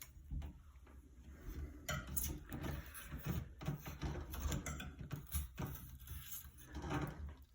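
Table knife scraping and prying at the adhesive behind a plastic child-safety latch on a cabinet door: irregular scrapes and small clicks, busier from about two seconds in.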